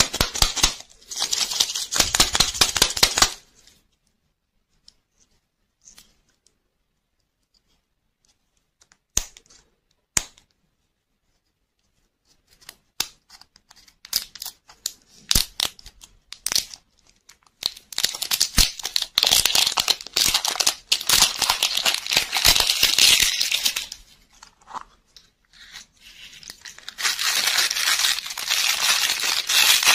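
Thin plastic film wrapper crinkling and tearing as it is peeled off a lollipop toy capsule, in several spells of dense crinkling, with sharp clicks and taps of hard plastic between them.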